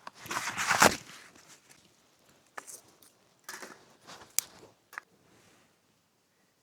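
Cardboard egg cartons being handled and torn as fire starter: a loud rustle and tearing in the first second, then a few scattered light knocks and crunches, fading out over the last second or so.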